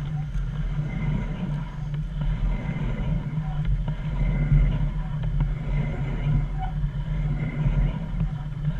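125cc supermoto pit bike's single-cylinder engine running at a low, steady idle while the bike rolls at walking pace.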